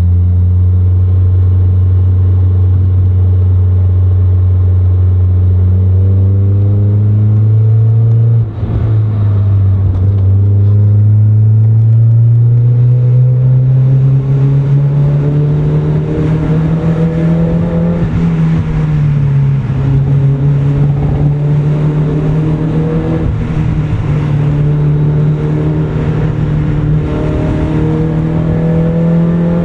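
A 1990 Mazda Miata MX-5's 1.6-litre inline-four running through an aftermarket FOX cat-back exhaust while driving. The engine note holds steady, then climbs slowly in pitch, with a brief break about eight and a half seconds in. It eases down a little at around eighteen seconds and then holds steady.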